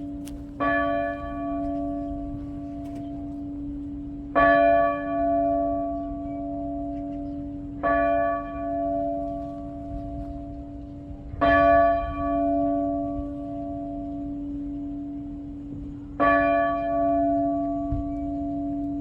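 A single church bell tolling, struck five times roughly every four seconds, each stroke ringing on into a long low hum that lasts until the next one. It is the bell rung to call the parish to Sunday Mass.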